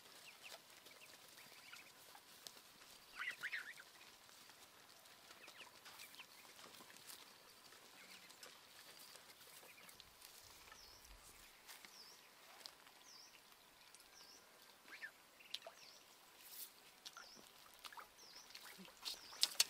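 Faint bird chirps: a short call about three seconds in, then a run of small quick repeated chirps, with scattered soft clicks and rustles as a stick pokes through the undergrowth.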